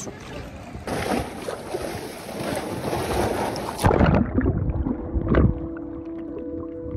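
Seawater splashing and sloshing at the surface, then an action camera going underwater about four seconds in. The sound turns muffled, with low rumbling and bursts of bubbles. Soft steady music notes fade in near the end.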